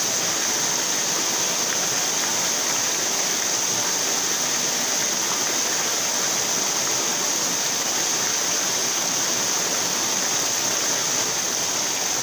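River water flowing steadily over a shallow stream bed, a constant rushing sound with no breaks.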